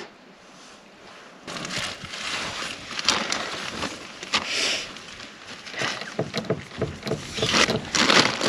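Plastic and cloth bags rustling and crinkling as belongings are handled and sorted, starting about a second and a half in, with many small crackles.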